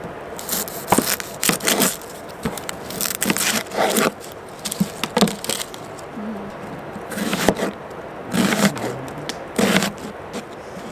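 Chef's knife cutting an onion on a plastic cutting board, and the onion's dry, papery skin crackling as it is peeled off by hand. The cuts and crackles come irregularly, a sharp one every second or so.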